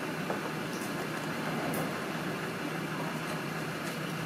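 Steady fan-like whirring noise, with a few faint ticks as a carbon fibre trim panel is handled and pressed onto a car's tailgate.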